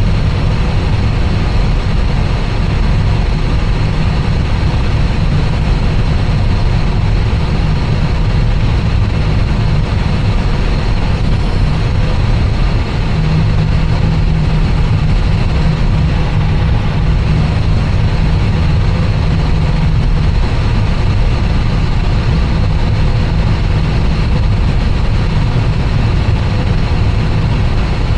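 Airbus A320 with its engines at idle before takeoff: a loud, steady low rumble with a hiss over it. A low steady hum comes in about 13 seconds in and drops away about 20 seconds in.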